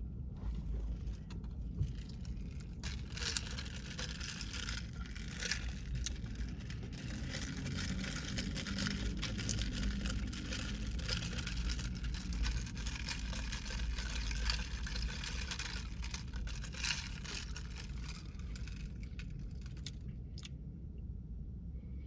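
A drink cup being stirred and jostled: a run of small rattling clicks over a low steady hum.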